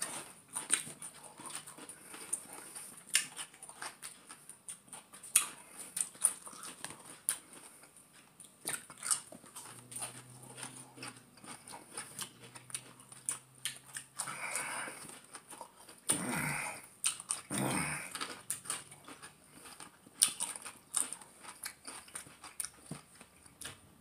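Pickles being bitten and chewed, a steady scatter of small crunching clicks, with three short muffled vocal sounds between about fourteen and eighteen seconds in.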